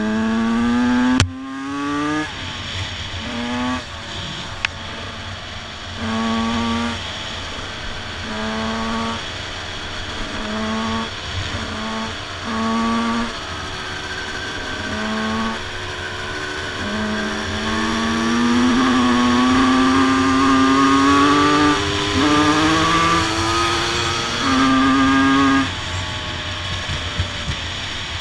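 Two-stroke dirt bike engine heard from on board, revving in short repeated bursts as the throttle is opened and closed, then pulling in longer runs with rising pitch in the second half. A single sharp knock sounds about a second in.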